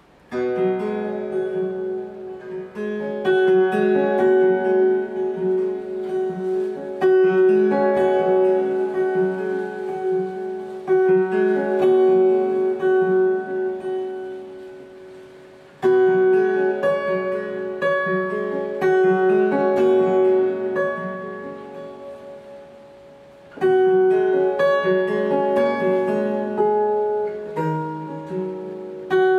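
Solo acoustic guitar played fingerstyle: a melodic instrumental piece of plucked notes left to ring. Phrases build and die away, with strong fresh attacks about 16 and 24 seconds in.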